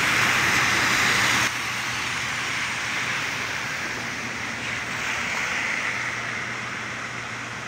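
Cars driving on a flooded, rain-soaked road, their tyres hissing through standing water over a steady traffic wash. The hiss is loudest for the first second and a half, then drops suddenly to a quieter steady level.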